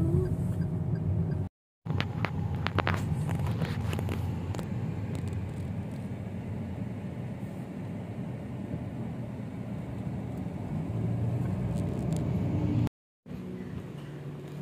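Car cabin noise while driving: a steady low rumble of engine and tyres, with a few sharp clicks about two seconds in. The sound is broken by two short silent gaps.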